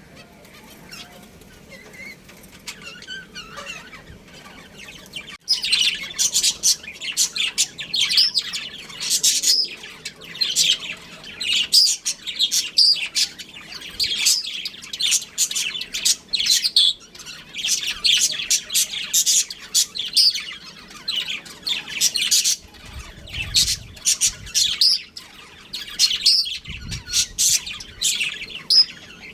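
Budgerigars chirping and warbling in a rapid, busy chatter, faint and sparse at first, then loud and almost continuous from about five seconds in.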